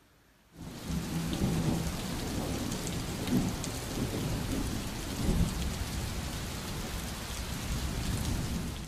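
Thunderstorm sound effect: steady rain with rolling thunder that swells twice, about three and five seconds in. It begins half a second in and cuts off suddenly.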